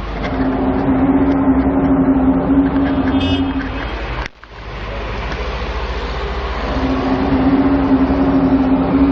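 A long, steady low drone with rumbling underneath. It cuts off suddenly about four seconds in and builds back to the same drone. It is one of the unexplained droning 'strange sounds' heard in the sky in amateur recordings.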